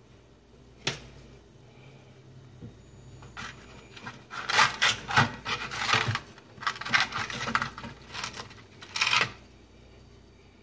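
Aluminium foil lining an air fryer basket crinkling and rustling as tongs grip and lift cooked ribs, in a run of loud crackly bursts lasting about six seconds, starting a few seconds in. A single sharp click comes about a second in.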